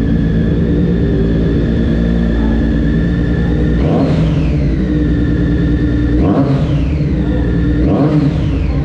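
A Triumph Daytona's inline-three engine idling on its stand, revved three times with quick throttle blips about four, six and eight seconds in, the pitch shooting up and falling back to idle each time.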